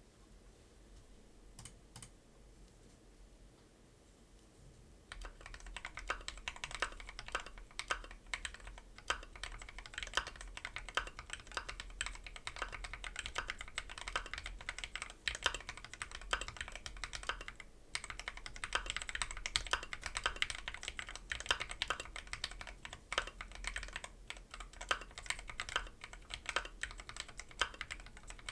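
Keychron Q2 mechanical keyboard with hand-lubed Gateron Milky Yellow switches, tuned stabilizers and a tape mod being typed on steadily, a thocky run of keystrokes. Two isolated clicks come about two seconds in, and continuous typing starts about five seconds in, with a brief pause in the middle.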